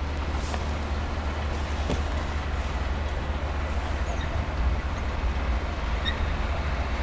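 A distant JS-class (Jianshe) steam locomotive and its train approaching, heard as a low steady rumble, mixed with wind buffeting the microphone.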